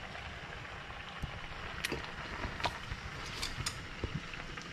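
Spaghetti boiling in a skillet of water on a gas stove: a steady bubbling hiss, with a few faint clicks of chopsticks and utensils being handled.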